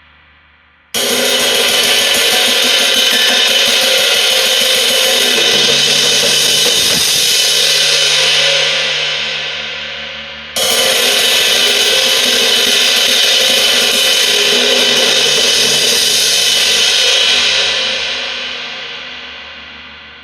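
18-inch Ison traditional crash cymbal struck twice, about nine and a half seconds apart. Each crash rings on loudly for several seconds, then fades out with the highs dying away first.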